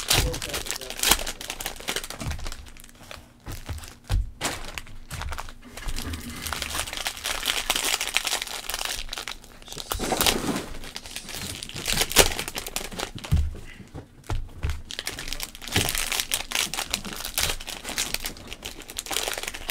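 Wrappers of 2020 Mosaic football trading-card packs crinkling and tearing as they are handled and ripped open, in irregular crackles and rustles with occasional sharper clicks.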